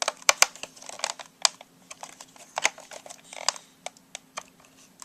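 Irregular plastic clicks and light knocks from handling and working at the plastic casing of an old Sharp clock radio while starting to take it apart, over a faint steady hum.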